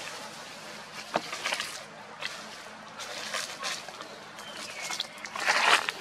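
Dry leaf litter rustling and crackling in irregular bursts, loudest in a dense burst of rustling near the end.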